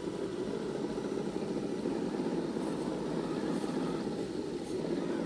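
Steady rushing of stream water pouring over a small weir.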